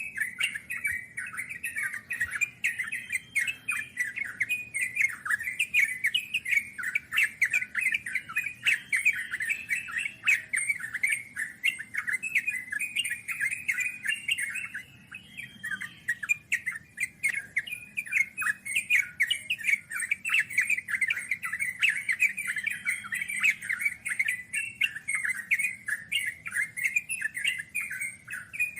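Yellow-vented bulbul (trucukan) singing in a long, rapid, chattering run of notes, the 'ngeropel' style of song, with only a brief lull about halfway through.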